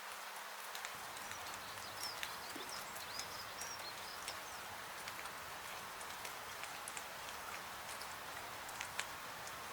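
Rain and fireplace ambience: steady rain hiss with scattered sharp crackles, and a few faint high chirps between about two and four seconds in.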